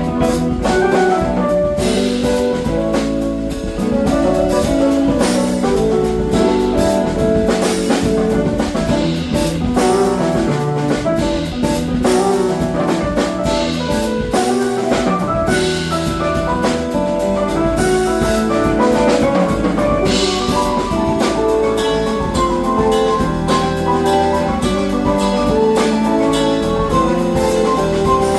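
Band music with a drum kit keeping a steady beat under melodic instruments playing runs of short notes. No singing is picked out.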